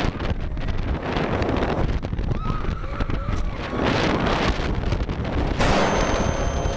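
Wind rushing over the microphone and the low rumble of a roller coaster train speeding along its track, with a few faint rider screams. Near the end a sudden loud blast comes in, an edited-in 'boom' sound effect.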